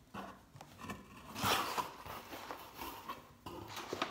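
Cardboard box being opened by hand: flaps and packing scraping and rustling in short bursts, with a few light clicks.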